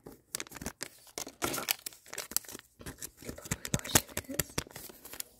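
Plastic packaging crinkling and tearing as it is handled, in a quick, irregular run of crackles and sharp clicks.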